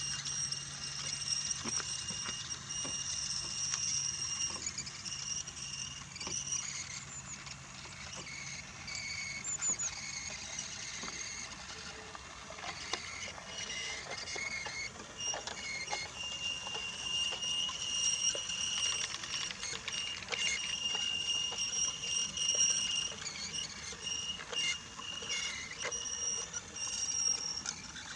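Brio toy train running on wooden track: a steady high-pitched motor whine that fades and returns, with light clicks and taps from the wheels on the wooden rails.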